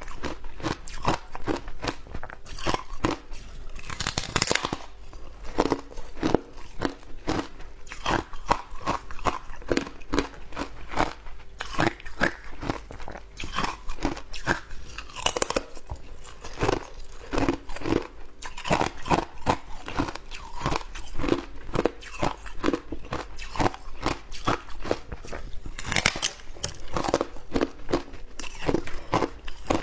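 Close-up chewing of shaved ice: rapid, irregular crunches several times a second, with a few louder bites.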